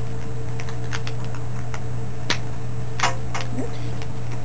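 Steady low hum with a handful of light, irregular clicks and taps of equipment being handled around the seat, the sharpest a little past two seconds in and about three seconds in.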